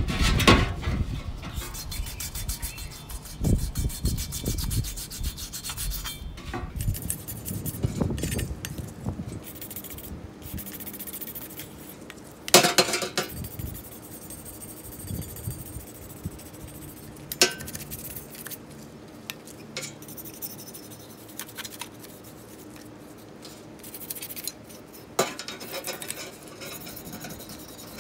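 Hand rubbing and scraping on the old shovel in irregular strokes, with a few sharp knocks.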